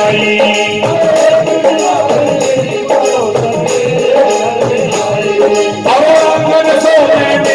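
Live devotional bhajan music: a wavering sung or played melody over a steady beat with jingling, shaking percussion.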